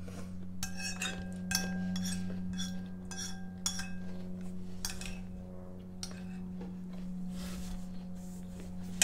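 Metal spoon clinking and scraping against a ceramic bowl of yogurt. There are several short ringing clinks over the first four seconds and one more about five seconds in, over a steady low hum.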